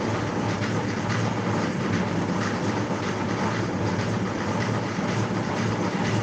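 Steady, fairly loud background noise with a low hum and faint irregular clatter; the speaker calls the surroundings noisy.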